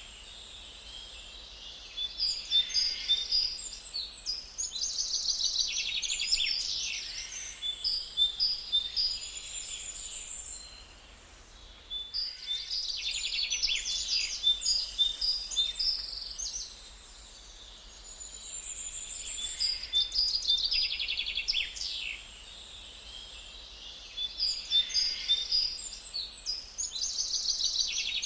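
Small pet birds chirping and chattering together in an aviary: rapid high chirps and trills in bouts of a few seconds, with brief lulls between them.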